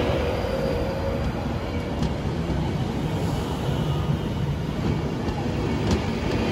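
Train running through the station: a steady, loud rumble, with a faint steady tone that fades out about a second in and two light clicks.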